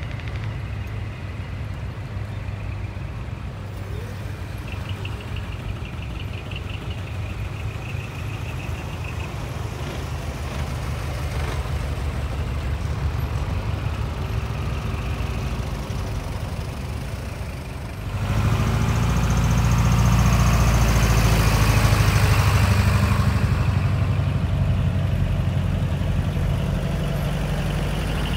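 A slow procession of trucks and cars passing at close range, diesel engines running at low revs. About 18 seconds in, a heavy truck's diesel engine comes close and passes, the loudest part, lasting roughly ten seconds.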